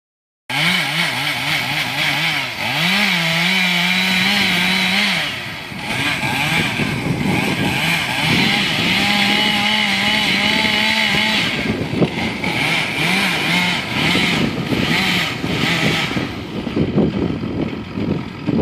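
Chainsaw running at high revs while cutting into a tree trunk, its pitch sagging and recovering as the chain bites. Near the end the engine note drops away, leaving a rougher, noisier sound.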